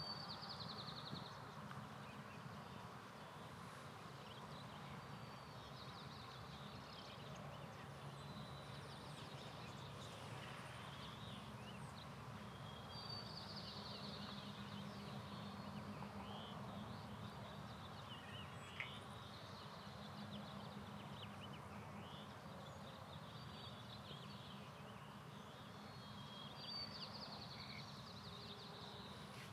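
Faint outdoor ambience: small birds give short, high trills and chirps every few seconds over a low, steady hum.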